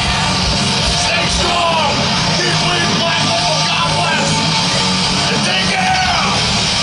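Live heavy metal band at full volume: distorted electric guitar, bass and drums, with a man singing over them.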